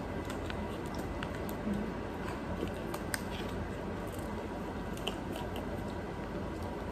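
Steady room hum with a few faint, scattered crinkles and small clicks as a plastic icing pouch is squeezed and cookies are handled.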